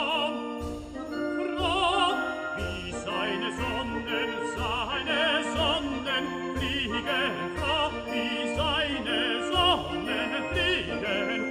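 Background music: operatic singing with a wide vibrato over orchestral accompaniment, with a regular low pulse underneath.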